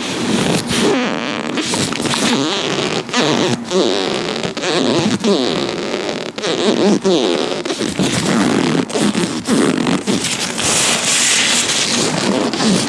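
Latex-gloved hands rubbing and squeaking close to the microphone, a continuous rubbery squeaking and squelching broken by many small sharp crackles.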